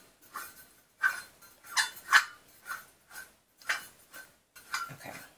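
Irregular light metallic clicks and taps, about a dozen, as a small picture frame is worked onto and tilted on the post of its pedestal stand, the parts knocking together with a short ring.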